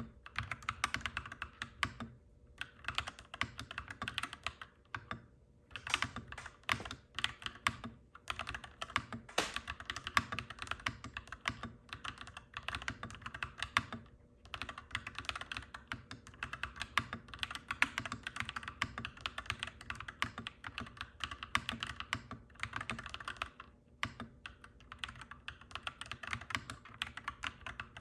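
Mechanical keyboard being typed on in fast, clacky runs, with brief pauses every few seconds, over a steady low hum.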